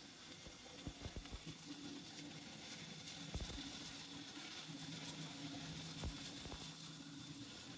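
Scattered light knocks and taps, the loudest about three and a half seconds in and another about six seconds in, over a faint steady hum.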